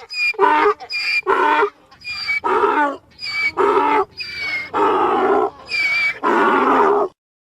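Donkey braying: a run of hee-haw calls, each a thinner high-pitched note on the in-breath followed by a louder, lower note on the out-breath, about one hee-haw a second. It stops abruptly about seven seconds in.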